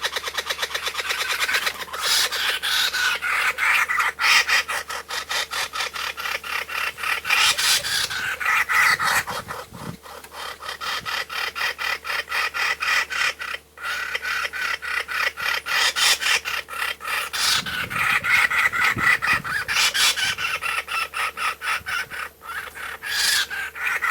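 Kookaburra calling: a long run of rapid, raspy chuckling notes that swell louder and fade again several times.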